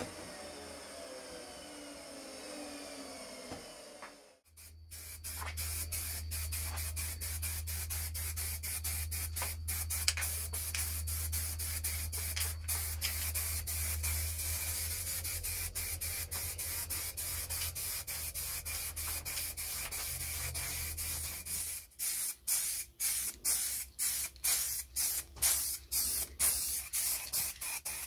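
A machine winds down over the first few seconds. Then a steady hiss of compressed air comes in over a low hum, breaking into rapid short spurts near the end.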